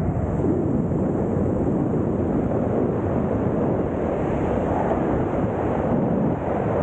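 Steady rushing wind noise as freefall airflow buffets the camera's microphone during a wingsuit flight.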